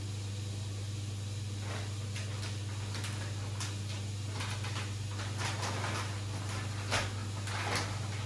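Steady low hum of aquarium equipment, with scattered soft clicks and brief hissy rustles from about one and a half seconds in. The sharpest is a knock about seven seconds in.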